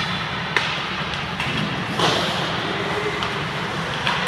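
Ice hockey practice in an indoor ice rink: a few sharp cracks and knocks of sticks on pucks and pucks hitting the boards, the loudest about two seconds in, over a steady background hum.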